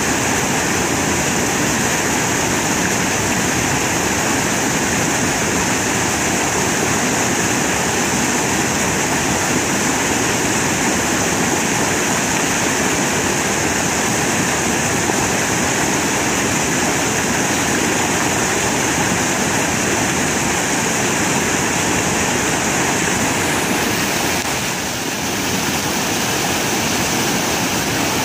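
Whitewater rapids on a rocky mountain creek: a loud, steady rush of water pouring over stone ledges.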